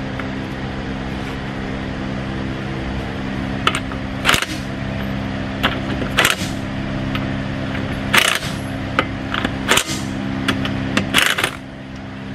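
Cordless impact wrench run in five short bursts a second and a half to two seconds apart, spinning on and snugging a car wheel's lug nuts, with lighter clicks in between. A steady hum lies under it all.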